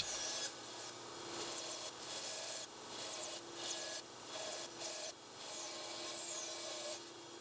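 Bandsaw cutting off the thin bird's-eye maple miter keys that stick out from a box's corners. A steady hum from the running saw sits under a rasping cut noise, which breaks off briefly several times as the box is fed and turned.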